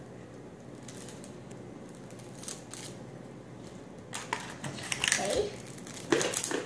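Small clear plastic bag crinkling and rustling as it is pulled and worked open by hand, with sharp crackles mostly in the last two and a half seconds; before that only faint room tone.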